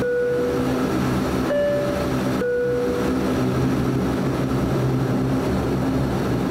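Cabin drone of a DHC8-Q400's turboprop engines and propellers during taxi, steady and even. Over it a two-tone cabin chime sounds: the low note right at the start, then a full high-then-low chime about one and a half seconds in.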